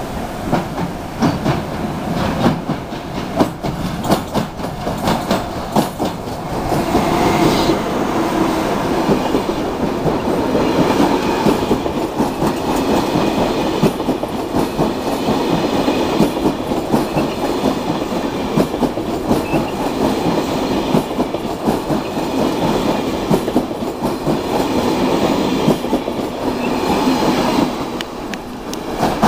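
Bombardier Traxx locomotive hauling an international passenger train past at speed. A long string of coaches follows, their wheels clicking rapidly over the rail joints. The sound drops away near the end as the last coach passes.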